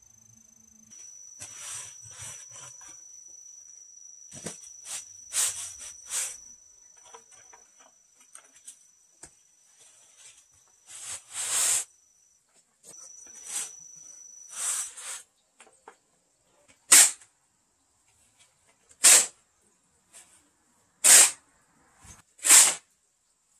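Steel shovel scraping across a concrete floor while a pile of dry sand and cement is turned over to mix mortar. It comes in short, sharp strokes, about one every two seconds in the second half.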